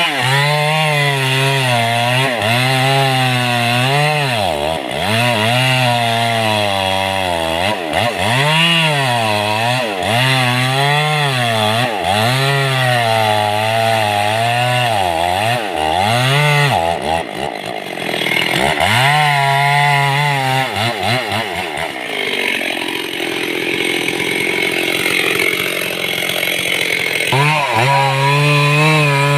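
Stihl two-stroke chainsaw cutting mahogany wood, its engine pitch sagging and recovering about once a second as the chain bites into the cut. For several seconds after the middle the engine's pitch fades into a rougher noise, then the saw returns to a steady high rev near the end.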